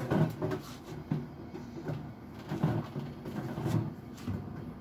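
Food and containers being handled and set down on the shelves of an open refrigerator: a string of irregular knocks and rustles.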